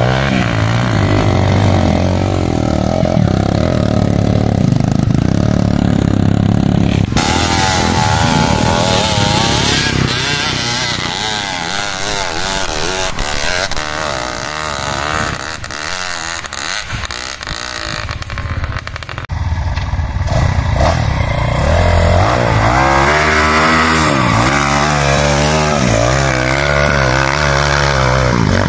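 Dirt bike engines revving hard and unevenly as trail bikes claw up a steep, slippery dirt climb, the pitch rising and falling with the throttle. The sound changes abruptly about seven seconds in, and strong revving returns near the end.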